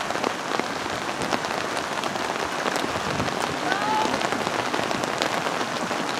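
Steady rain, with many small drops ticking on a surface close to the microphone. Faint distant calls rise briefly out of it about four seconds in.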